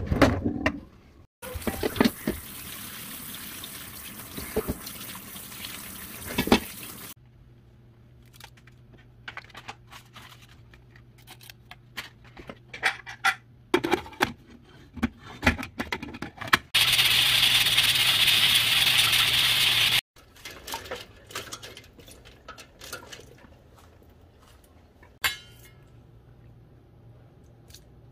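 Tap water running onto boiled pork back bones in a colander for about six seconds, with clinks of the metal pot. Then scattered clatter as a stainless pressure cooker is handled, and a loud steady hiss for about three seconds that cuts off abruptly.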